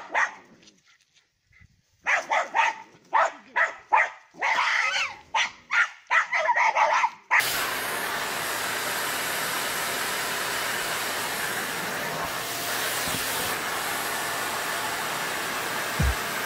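A dog barks rapidly in a string of short barks. About halfway through this gives way to the steady noise of a vacuum cleaner running, with a few low thumps near the end.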